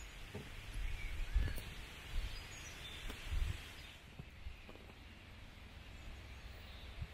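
Rural outdoor ambience: a few faint bird chirps over a low, uneven rumble.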